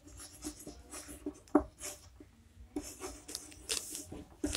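Chalk writing on a blackboard: soft, irregular scratches of the chalk stroking out letters, with a few sharper taps.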